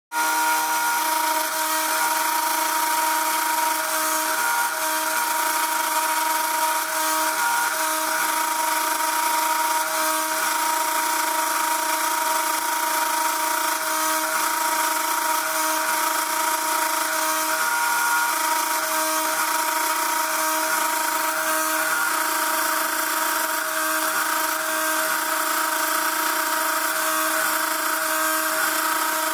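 Rotary engraving machine's high-speed spindle running as its cutter engraves lettering into a metal business card case: a steady whine of several tones over a hiss, wavering slightly now and then.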